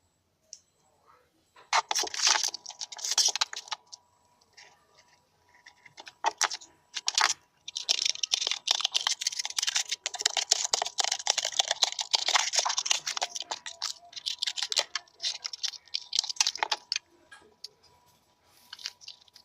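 Rapid, dry scratching and crackling from hand work on the DIY speaker box: a short spell of about two seconds near the start, then a longer stretch of about nine seconds from about eight seconds in.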